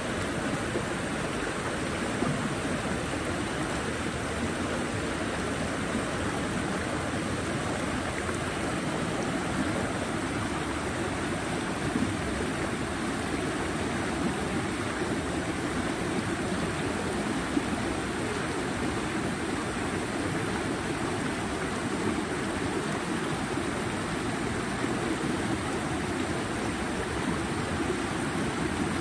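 Flowing water running steadily, an even, unbroken wash of water noise.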